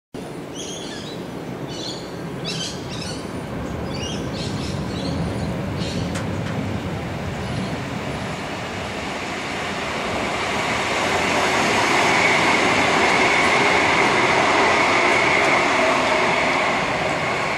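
Electric suburban train running in on the rails: a steady rumble of wheels on track that grows louder from about ten seconds in, with a high, steady whine while it is loudest. Short high chirps sound over the first few seconds.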